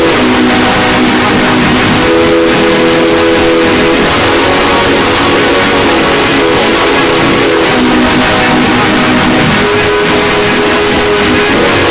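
Very loud, heavily distorted electronic sound effect: a harsh, clipped wash of noise with held tones underneath that change pitch every couple of seconds.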